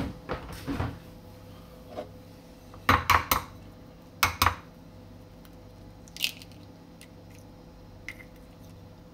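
An egg tapped against the rim of a small glass bowl to crack it: a cluster of sharp knocks about three seconds in and two more a second later, with a clink at the start and a few light clicks of shell on glass.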